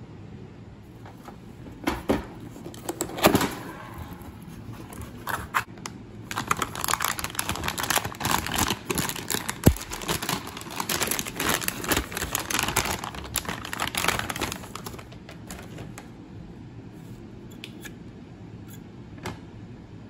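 A graphics card's cardboard box being handled, with a few sharp knocks in the first few seconds, then a plastic anti-static bag crinkling densely for several seconds as the card is lifted out in it, dying away near the end.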